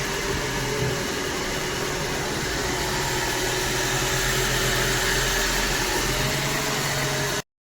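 Toyota Camry engine running steadily at idle after its repair, with a steady hum and a few held tones; it cuts off suddenly near the end.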